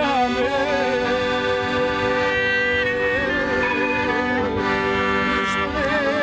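Music: a melody of long held notes with vibrato over sustained chords.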